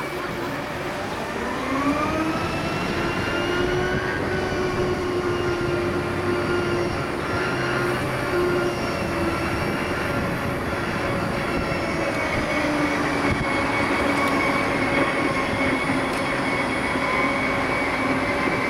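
Segway drive motors whining. The pitch climbs over the first few seconds as it gathers speed, then holds steady while it cruises, over tyre and road noise.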